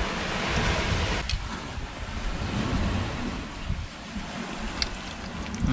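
Wind rumbling on the microphone over a steady outdoor hiss, with a brighter hiss in the first second and a few faint clicks.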